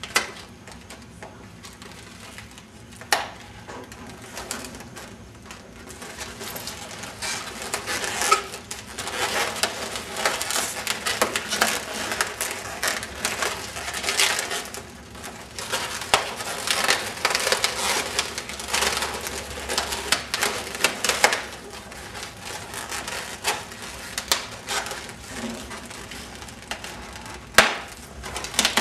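Latex balloons rubbing and squeaking against each other and against hands as a stuffed clear balloon with a red heart balloon inside is handled and tied. A sharp snap comes about three seconds in and another near the end, and the rubbing is busiest through the middle.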